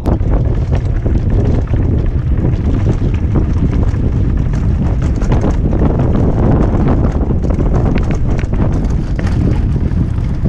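Wind buffeting the camera microphone as a 2015 Giant Trance full-suspension mountain bike rolls fast down a rocky trail, with a steady low rumble and frequent small knocks and clatters from the tyres and bike over the rock.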